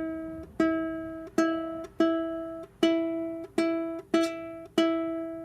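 Six-string koa tenor ukulele being tuned: one string is plucked about seven times, roughly every two-thirds of a second, and each note is left to ring and fade. Its new strings are still stretching and going out of tune.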